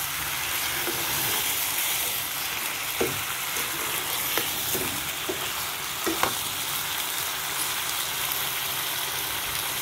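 Chicken pieces sizzling in a pan while a metal spoon stirs them, the spoon knocking against the pan a few times between about three and six and a half seconds in.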